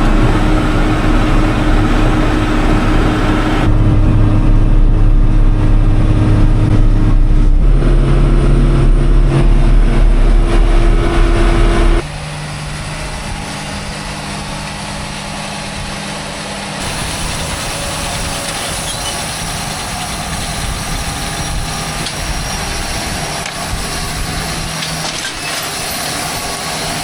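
Diesel engine of farm machinery running, loud and close, its pitch stepping up twice. About twelve seconds in it drops abruptly to a quieter, steady engine hum.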